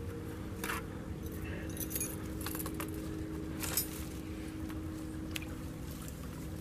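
Steel trap and its chain jangling and clinking in several short bursts as it is handled.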